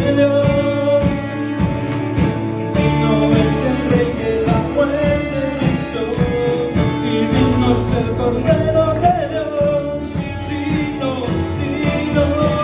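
Live worship band playing a gospel song: a man singing into a microphone over keyboard, bass and electric guitar, with a steady beat.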